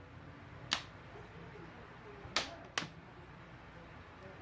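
Plastic retaining clips of a laptop's front screen bezel snapping free as it is pried off the metal back frame: three sharp clicks, one about a second in and two close together past the middle, each click the sign of a clip releasing.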